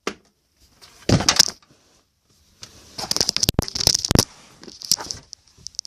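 Clicking and crackling handling noise in two bursts, a short one about a second in and a longer one from about two and a half to four seconds, then a few scattered clicks.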